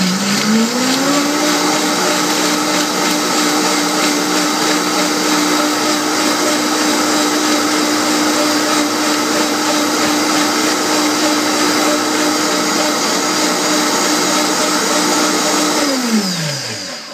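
Vitamix blender motor running with a thin coconut curry sauce in the jar: it speeds up over the first second or so to a steady high whine, holds there, then winds down and stops near the end.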